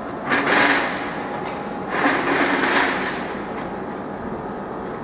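Fiber laser cutter cutting carbon steel plate: two bursts of hissing and crackling, each under a second long, over the machine's steady hum.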